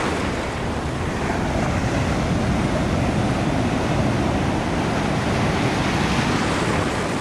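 Ocean surf breaking and foam rushing up the sand close to the microphone: a steady wash of churning water that swells as a wave comes in.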